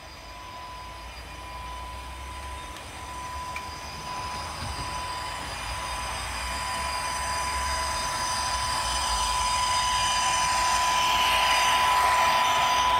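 H0-scale model train running on its track, growing steadily louder, with a steady high whine throughout.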